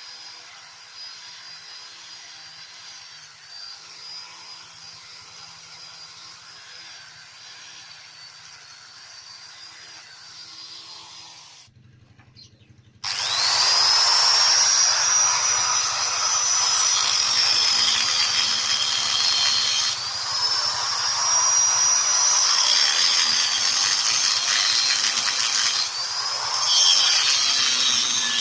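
Handheld electric power tool working metal: for about the first twelve seconds a quieter steady running sound, then after a brief pause it starts up loud, its high whine rising sharply as it spins up, then sagging as it bites into the work, over and over.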